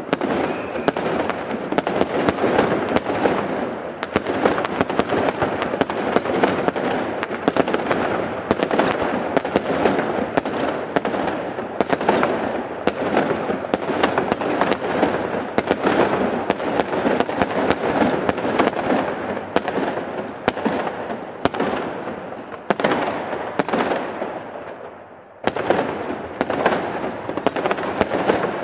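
Fireworks display: aerial shells bursting in a rapid, continuous string of bangs, each with a trailing echo. The barrage thins out and fades for a moment, then a fresh volley starts suddenly near the end.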